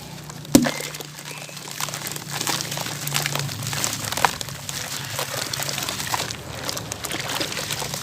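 Dry sand-cement clumps being crushed and crumbled by hand, giving a continuous crackling, crunching texture of many small cracks. A single sharp snap comes about half a second in.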